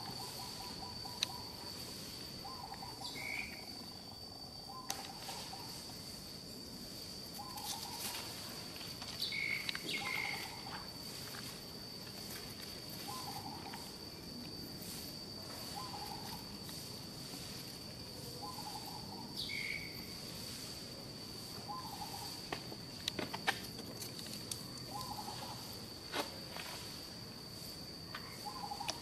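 Outdoor ambience of a steady high-pitched insect drone, with a bird repeating a short low call every two to three seconds and a few higher chirps now and then.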